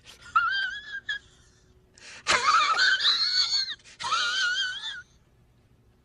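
A high-pitched, wavering, voice-like wail or wheeze, part of a meme sound-effect clip, heard in three bursts. The middle burst is the loudest and longest and starts with a sharp click.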